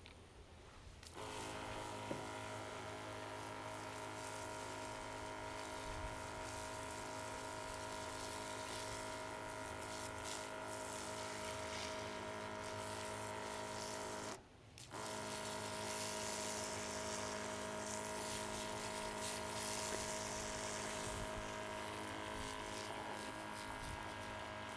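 A small electric motor running with a steady whirring hum, cutting out briefly about halfway.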